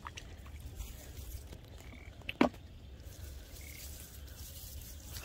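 A frog giving two short chirps over a low steady rumble, with one sharp click about halfway through.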